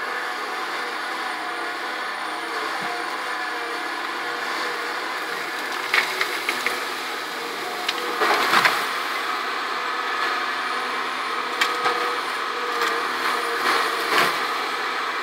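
Caterpillar 523B tracked feller buncher's diesel engine running steadily, with a steady hydraulic whine over it. Sharp cracks and knocks break in about six seconds in, in a loud cluster around eight seconds, and again twice near the end.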